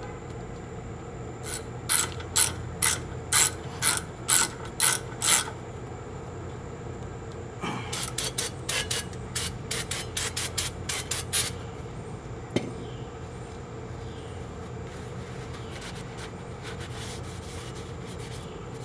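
Sharp ratchet-like metal clicks from hand work on a disc brake: a run of about eight evenly spaced clicks, roughly two a second, then after a pause a faster run of clicks, and one lone click a little later.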